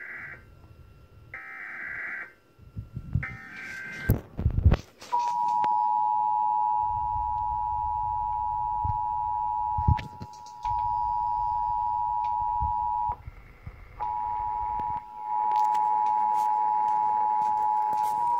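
Emergency Alert System test: the tail of the digital SAME header, two short bursts of data tones a second apart, then after a click about five seconds in the EAS two-tone attention signal (853 and 960 Hz) sounds steadily, breaking off briefly twice.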